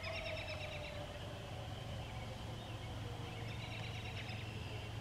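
A distant outdoor warning siren winding down, its single tone sliding slowly lower, over a steady low hum. Birds chirp in short quick trills near the start and again in the second half.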